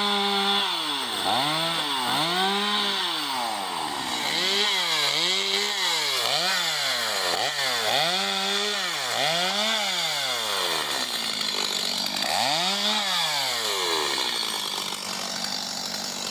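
Two-stroke chainsaw running and being revved up and down over and over, about once a second, while cutting up a storm-downed tree. Its pitch settles lower and steadier near the end.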